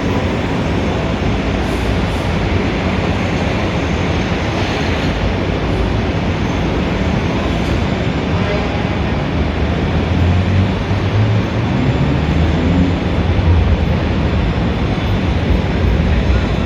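Dense city street traffic: a steady wash of engine and tyre noise, with a heavy vehicle's low engine rumble swelling in the second half.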